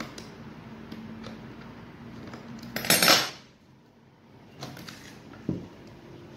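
A metal T-handle screwdriver set down on a hard tabletop with a brief metallic clatter about three seconds in, then a couple of lighter knocks as the steam iron is handled.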